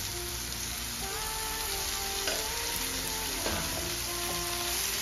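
Chicken liver masala frying with a steady sizzle in a steel kadhai, with a heap of fresh fenugreek leaves just added on top. Soft background music with held notes plays over it.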